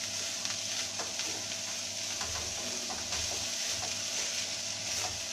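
Chopped cluster beans sizzling as they fry in a steel kadhai, with a spatula scraping and tapping against the pan in short strokes as they are stirred together with the spices.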